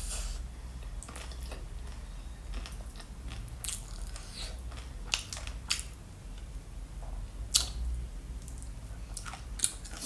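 Close-up eating sounds of fruit being bitten and chewed: irregular sharp clicks and short wet crunches, a few a second at times.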